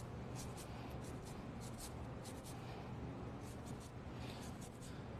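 Tahiti lime rind scraped over a handheld zester: faint, quick rasping strokes, about three a second, as the zest falls into the bowl.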